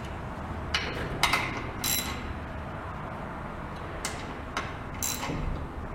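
Socket ratchet clicking in short, irregular runs as bolts are snugged up, before final torquing.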